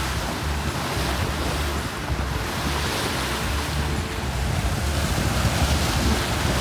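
Sea water rushing along a sailing yacht's hull under way, with wind buffeting the microphone; the wash swells and eases every second or two.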